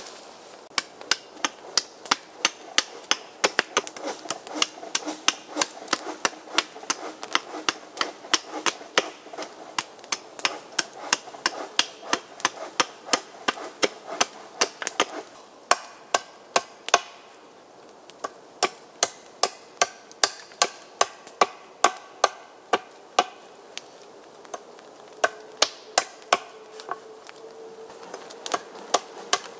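Hatchet chopping into a wooden pole held on a stump chopping block: sharp, repeated blows, two or three a second, with a couple of short pauses in between.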